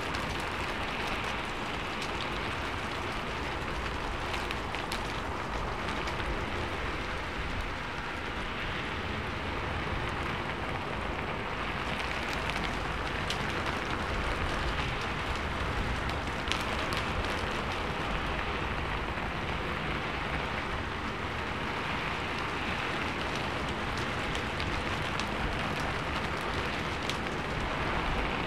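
Steady rain on a sheet-metal roof: a dense, even hiss with scattered sharper ticks of single drops striking the metal.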